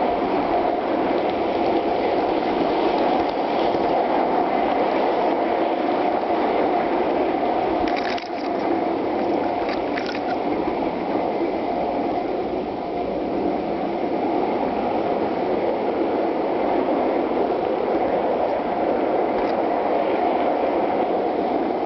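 Gauge one garden railroad train rolling along its track, heard from a camera riding on one of the cars: a steady rolling rumble of wheels on rail, with a couple of short clicks near the middle.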